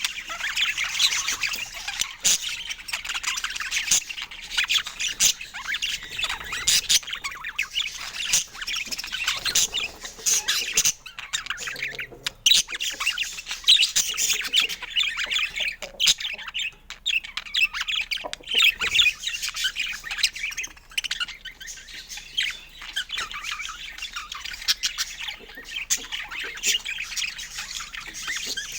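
Budgerigars chattering continuously: a dense stream of rapid warbles, chirps and squawks with short breaks.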